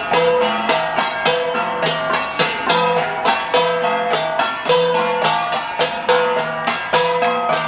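Several flat bronze gongs (gangsa) beaten by hand in an interlocking pattern: a fast, steady rhythm of sharp metallic strikes, each ringing on at its own pitch.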